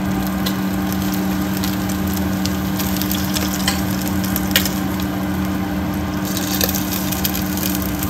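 Hot cooking oil poured over the skin of a roasted pork belly roll (bagnet), the skin sizzling and crackling with a few sharp pops as it puffs up crisp. A steady low hum runs underneath.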